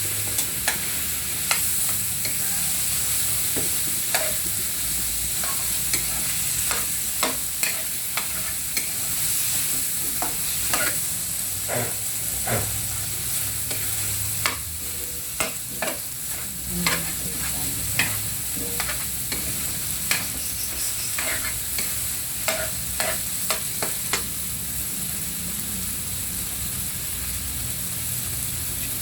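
Food frying in a pan with a steady sizzle, while a spatula scrapes and taps against the pan at irregular intervals as it is stirred.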